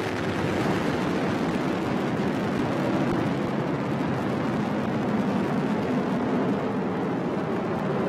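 Launch noise of an Atlas V rocket climbing after liftoff: a loud, steady, dense rumble from its RD-180 main engine and solid rocket boosters firing together.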